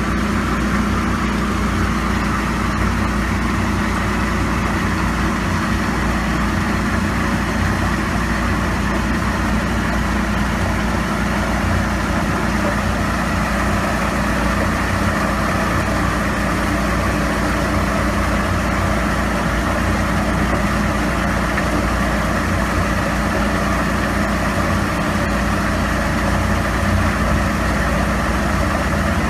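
A machine running steadily: a constant hum with a broad hiss over it, unchanging throughout.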